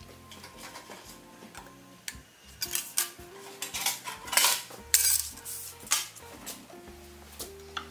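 Sharp metallic clinks and clacks of small brass pieces being cut and handled on the steel table of a bench shear, several in quick succession from about two seconds in, over soft background music.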